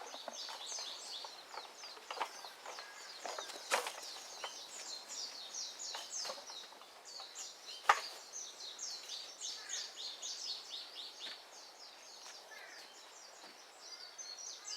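Many small birds chirping in a dense, continuous chorus of short, high, falling notes, with a few sharp knocks, the loudest about four and eight seconds in.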